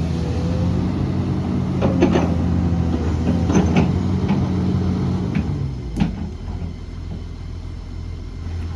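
Diesel engine of a heavy earthmoving machine running steadily, with several sharp metallic clanks from its working gear about two, three and a half and six seconds in. The engine note drops after about six seconds.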